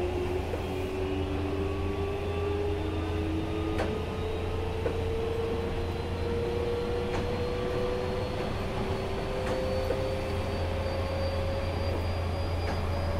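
Nankai 9000 series electric train, rebuilt with VVVF inverter control, heard from inside the car as it runs: a low rumble with a whine from the traction motors that climbs slowly and steadily in pitch as the train gathers speed. A few short clicks from the wheels on the track come through.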